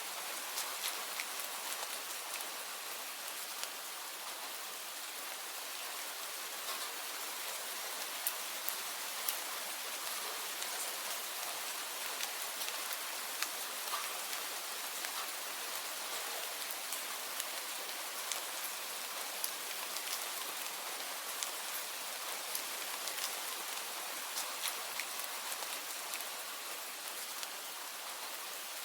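Steady rain falling: an even hiss with scattered sharper drop ticks throughout.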